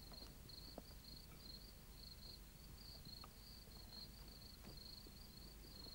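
Crickets chirping, faint and steady, in an even high-pitched pulse. A few soft crackles come from a small campfire as its embers are stirred.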